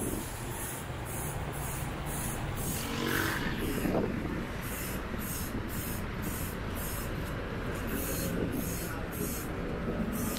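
Steady road traffic noise from cars and jeepneys on the street below, with one louder vehicle passing about three to four seconds in.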